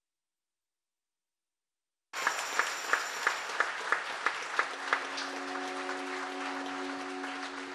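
Silence for about two seconds, then a congregation breaks into applause, with one nearby person clapping loudly about three times a second. About five seconds in, a soft sustained music chord begins underneath the applause.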